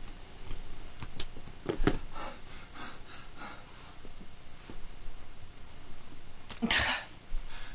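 A man's short, forceful sniffs and breaths during a seizure, with one loud, sharp exhalation near the end.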